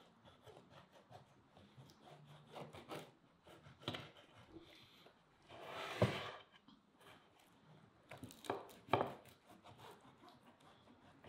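Kitchen knife sawing through the baked crust of a meat kutab on a clay plate: a run of small crackles and scrapes, with a louder scraping stretch about halfway through and two sharp clicks near the end.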